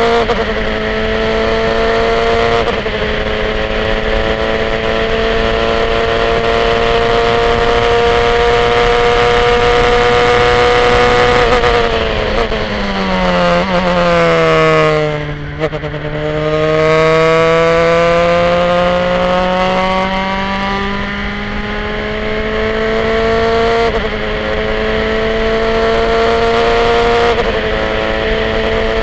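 Formula 3 car's four-cylinder racing engine at full throttle, heard onboard, revs climbing with an upshift about three seconds in. About halfway through the revs fall away steeply as the car slows for a corner, then climb again under hard acceleration, with two quick upshifts near the end.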